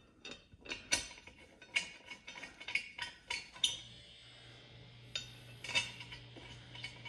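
Metal beadlock ring bolts clinking and tapping as they are handled and started by hand into the beadlock ring: a scatter of light, sharp metallic clicks.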